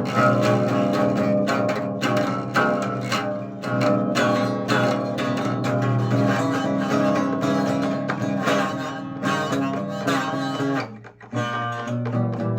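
Guitar music, plucked and strummed strings playing continuously, with a brief drop-out near the end.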